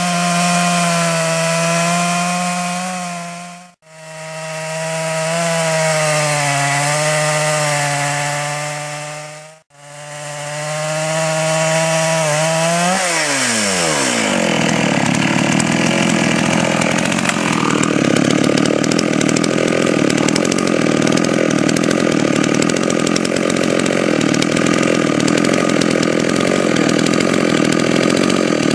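Chainsaw at full throttle ripping lengthwise through a log in a small chainsaw log mill, a steady high engine note. The sound cuts out briefly twice. About 13 s in, the engine pitch falls steeply and gives way to a rougher, noisier running sound that carries on loud.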